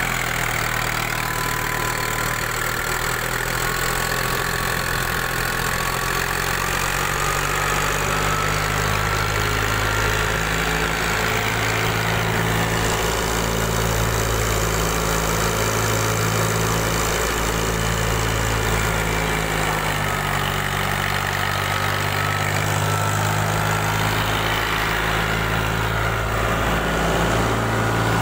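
Tractor-driven wheat thresher running steadily: the tractor's diesel engine under load together with the thresher's drum and fan, a continuous drone with a slow, regular swell about every two seconds.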